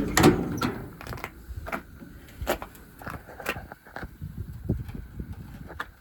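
Crew-cab truck door being handled: a series of separate knocks and clicks, loudest in the first second.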